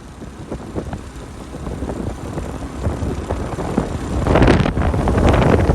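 Wind buffeting the microphone in a rough, crackling rumble that grows much louder a little over four seconds in.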